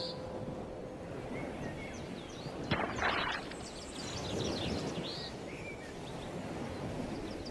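Seaside ambience: a steady wash of surf-like noise with scattered short bird calls, and a brief noisy rush about three seconds in.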